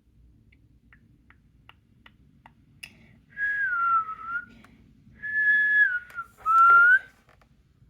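A person whistling three short notes: the first glides down, the second holds and then drops, and the last rises. A few faint clicks come before them.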